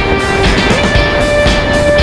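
Background music with a steady beat, and a held note that slides up in pitch about two-thirds of a second in.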